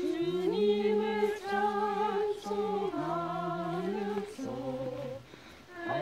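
A small group of voices singing a slow Korean hymn together without accompaniment, holding long notes, with a short break about five seconds in.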